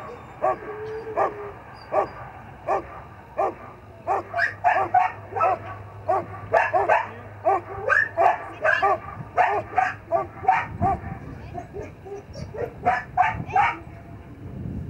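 Belgian Malinois barking repeatedly at a helper holding a bite sleeve, as in protection training. A rapid series of sharp barks, coming faster and louder from about four seconds in.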